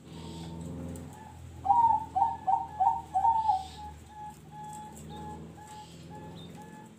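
A caged zebra dove (perkutut) singing. About two seconds in comes a run of about five loud, quick, falling coos, then a string of soft, evenly spaced short notes. This is the song pattern that keepers call 'noklak nekung'.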